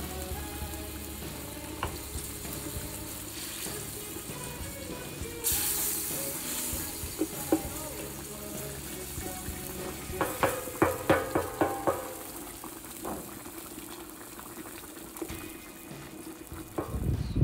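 Meat in fat and wine simmering and sizzling in a wide steel disc pan over a fire, stirred with a wooden spatula, with a quick run of spatula knocks and scrapes on the pan about two-thirds of the way through.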